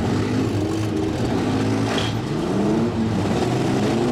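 Several demolition derby cars' engines running and revving together, their pitches rising and falling over a steady low drone, with one short sharp knock about halfway through.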